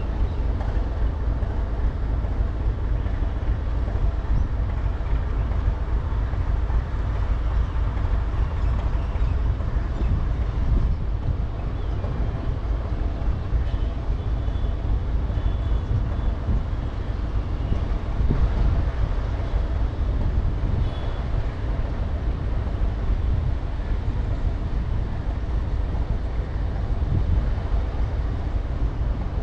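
Freight train running past at speed: a steady, heavy rumble that goes on evenly, with no clear horn.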